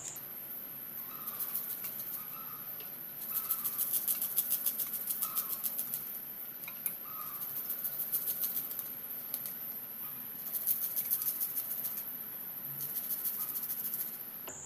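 Garlic cloves being grated on a handheld metal grater: quick, rhythmic rasping strokes that come in several short spells, with brief pauses between them.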